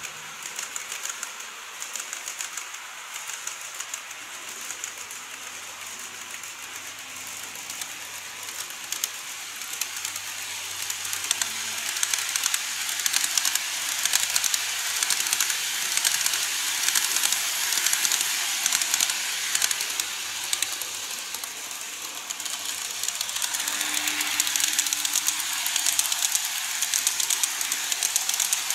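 Model train coaches rolling past on the layout's curved track: a rapid, continuous stream of fine clicks and rolling hiss from the wheels, growing louder about a third of the way in as the cars come close.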